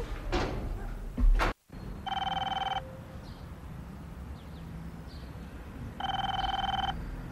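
Landline telephone ringing twice, each ring under a second long, about four seconds apart. A single thump comes about a second before the first ring.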